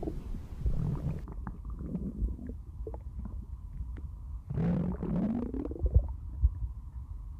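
A person's stomach rumbling and gurgling in irregular low bursts, with one longer gurgle that rises in pitch a little past the middle.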